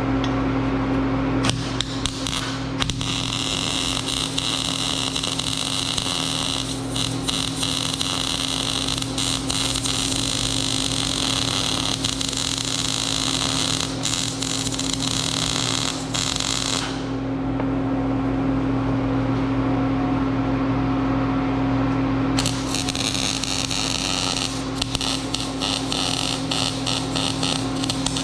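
Electric arc welding: the arc crackling and hissing in two long beads, the second starting about five seconds after the first stops, over the steady electrical hum of the welder, which is all that is heard between the beads.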